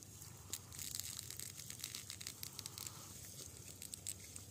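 Faint scattered crackling and scrunching of a thermocol (polystyrene foam) piece pressed by hand onto a hole in a corrugated plastic pipe, the foam softening and melting under the bond liquid poured on it.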